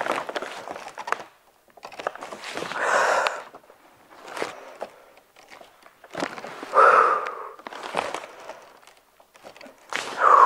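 Weighted squats with a pack of bottled water: a breathy exhale and crinkling of the plastic pack come about every three and a half seconds, one per rep, with small clicks and knocks in between.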